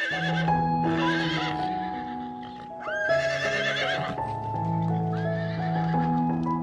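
A horse neighing several times, each whinny a shaky, wavering call, over background music with held notes.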